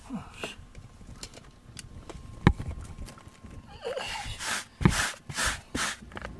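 Rubber-bristled pet-hair brush scraped across a carpet in short strokes, pulling up shed cat hair, with a sharp knock about two and a half seconds in and another near five seconds. The strokes come thickest in the second half.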